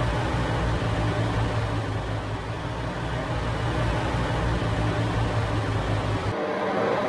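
Steady driving noise of a heavy semi-truck at highway speed: a low engine hum under an even rush of road and wind noise. The low hum drops out abruptly near the end.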